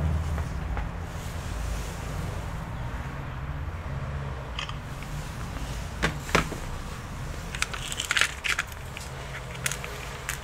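Small plastic clicks and clatter from a clear plastic compartment box being handled: two sharp clicks about six seconds in, a quick cluster a second or two later, and a few more near the end. A steady low hum runs underneath.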